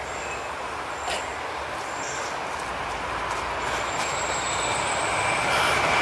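A train passing nearby, its rolling noise growing steadily louder, with faint thin high squeals over it.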